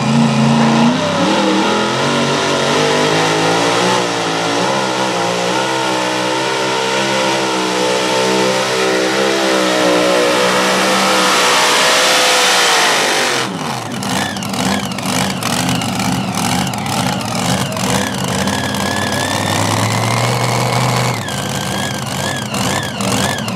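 Supercharged mini modified pulling tractor engine at full throttle under load, its pitch climbing steadily for about twelve seconds. About thirteen seconds in the revs fall away sharply, and the engine then runs low and uneven with crackling pops, with a short blip of throttle near the end.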